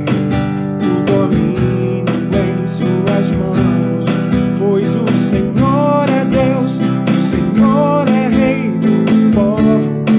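Nylon-string classical guitar strummed in a steady rhythm, moving through the G, C and D chords of a gospel song, with a second acoustic guitar playing along.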